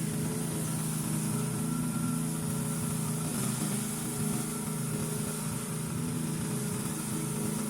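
Cordless battery-powered weed cutter running steadily with a continuous hum and a high hiss.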